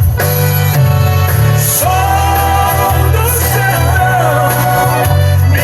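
Music: a Christian praise song between sung lines, with a melody line sliding in pitch over a steady accompaniment.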